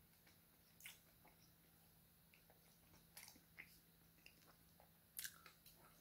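Faint chewing with soft, wet mouth clicks and smacks, a few louder ones scattered through, the loudest a little after five seconds in.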